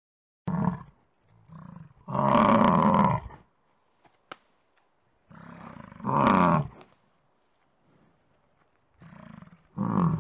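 American bison bellowing: three long bellows, about two, six and ten seconds in, each led in by a softer grunting start, with a short call just before the first.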